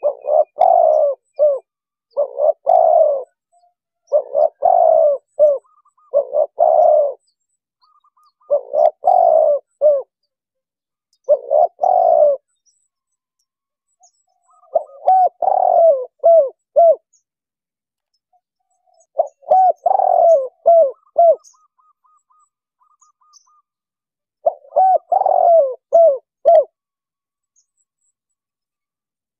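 Spotted dove (tekukur) cooing: repeated phrases of short, low coo notes, each group lasting a second or two, separated by pauses with dead silence between them.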